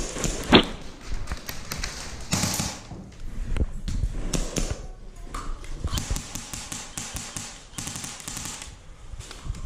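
Scattered taps, clicks and thuds, with one sharp knock about half a second in and a denser run of clicks in the later half.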